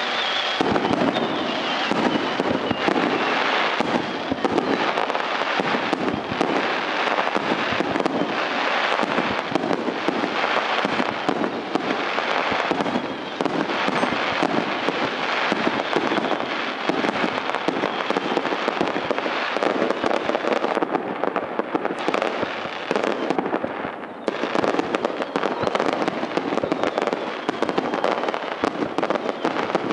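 Aerial fireworks going off in a dense, continuous barrage of shell bursts and crackling, with a brief lull about four-fifths of the way through.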